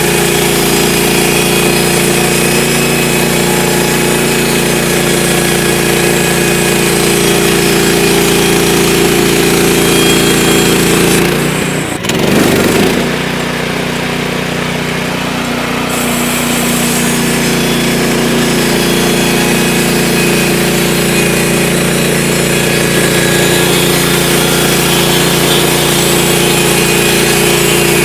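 Gas-engine portable band sawmill running steadily under load as its blade cuts through a log, with a brief break in the sound about twelve seconds in.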